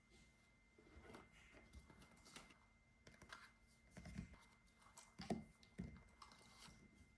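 Faint, irregular computer keyboard typing: scattered key clicks with a few heavier taps about four to six seconds in, over a thin steady high tone.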